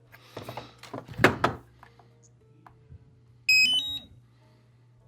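A few knocks and rubbing from parts being handled, then about three and a half seconds in the DJI Agras remote controller powers on with a short rising run of electronic beep tones lasting about half a second.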